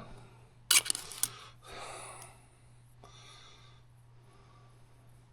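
Two sharp clicks about a second in, as the transmission's internal parts are handled after the snap ring comes out, then a soft breathy noise, over a faint steady low hum.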